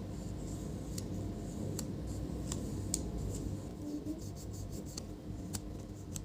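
Rubber eraser rubbing over the contacts of a laptop keyboard's ribbon-cable connector, a faint scratchy rubbing with irregular small ticks. It is cleaning dirty contacts on a keyboard where some keys don't work.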